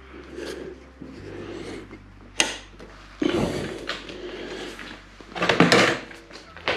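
Metal clicks and scraping as a Harley-Davidson's detachable backrest is worked onto its stiff chrome docking hardware: a sharp click about two and a half seconds in, then rattling and scraping, loudest near the end.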